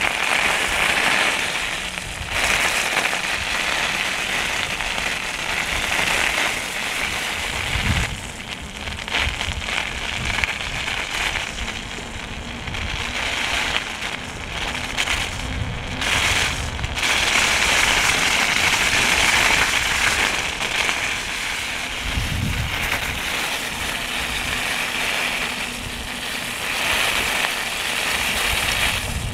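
Steady crackling, crunching noise of travel along a snow-packed, gritted road, with irregular low rumbles of wind on the microphone.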